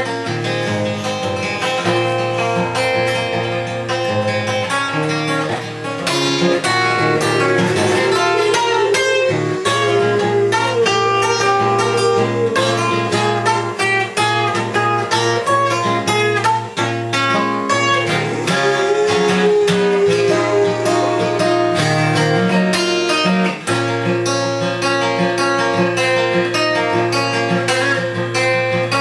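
Acoustic guitar strummed steadily, with a boxer dog howling along to it in wavering notes in places.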